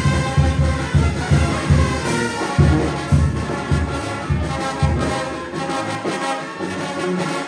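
Live banda music: brass over a steady low beat of about three pulses a second. The low beat drops out about five seconds in, leaving the sustained horn notes.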